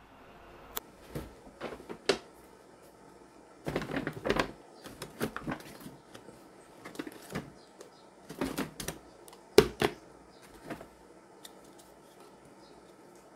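Small objects being handled indoors: irregular clicks, taps and knocks with brief scuffs, coming in clusters, with one sharper knock about two-thirds of the way through.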